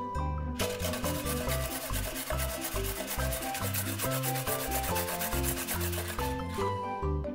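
A carrot being grated on a stainless steel box grater: quick, repeated scraping strokes that start about half a second in and stop near the end. Background music plays throughout.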